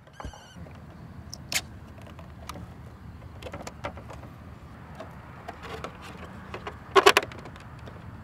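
Sharp plastic clicks and knocks as the wing and fuselage of a 3D-printed PLA model plane are handled and pulled apart, with a quick cluster of louder clicks near the end. A low steady rumble sits underneath.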